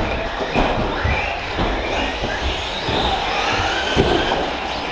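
Electric radio-controlled short-course trucks racing on an indoor carpet track: the motors whine, rising and falling in pitch as the trucks accelerate and brake, with several knocks as they land from jumps and hit the track.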